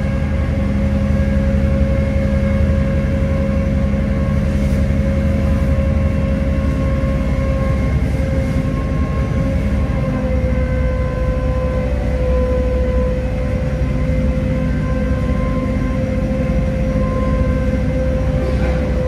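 Gosport Ferry's engines running steadily under way, heard on board: a constant low drone with a few steady whining tones over it.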